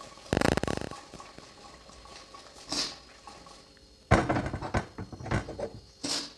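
Aluminium pressure cooker pot of spiced vegetables shaken by hand to toss them, with a brief rapid rattle of the contents. A few seconds in the pot is set back down on the gas stove's metal grate with a sharp knock and a clatter of metal on metal, the loudest sound.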